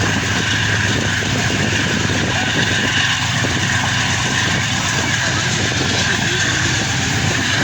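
Steady rumble and rushing noise of a moving passenger train, even in level throughout, with a low hum underneath.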